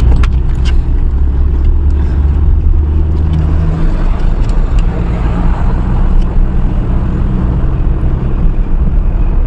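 Moving car's road noise with wind rushing in through an open rear window, a loud, steady low rumble.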